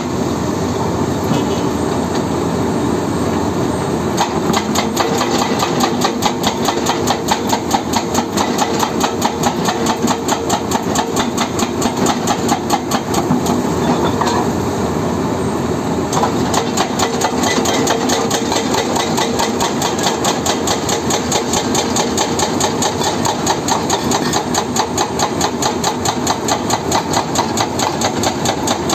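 Excavator-mounted hydraulic rock breaker hammering rock in a fast, steady train of blows over the excavator's running engine.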